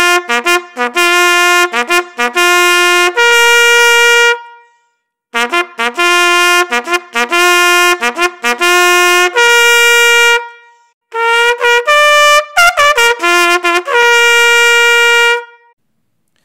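Solo trumpet sounding a bugle call. It plays three phrases of quick notes, each ending on a long held note, with brief pauses between them.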